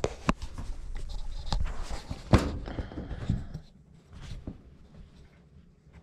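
Camera being handled and repositioned: a run of clicks, knocks and rustling, with one sharp knock a little past two seconds in, then only faint rustling from about three and a half seconds on.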